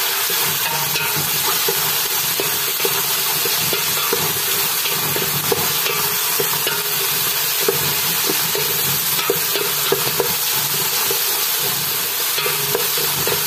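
Chopped onion, garlic and chilies with tomato paste frying in oil in a large aluminium pot, sizzling steadily, while a wooden spoon stirs and scrapes against the pot with frequent small knocks.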